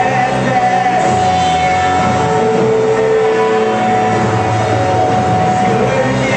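Live psychedelic art-rock band playing, with long held notes over a dense, steady wall of sound.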